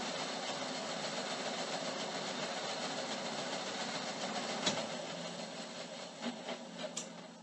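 Craftsman band saw running steadily, then switched off with a click a little over halfway and coasting down, with a few light knocks as it slows.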